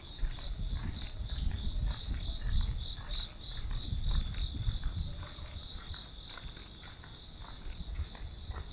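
Insects chirping in a steady, fast-pulsing high trill, over the walker's own footsteps on stone paving, heard as irregular low thuds.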